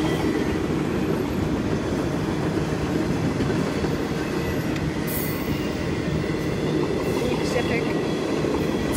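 Freight train cars, boxcars and autoracks, rolling past: a steady rumble of steel wheels on rail, with a faint, steady high wheel squeal running over it.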